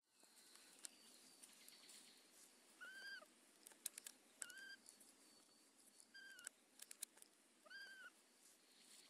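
Young macaque giving four short, high-pitched, arching coo calls, spaced about a second and a half apart, with a few faint sharp clicks in between.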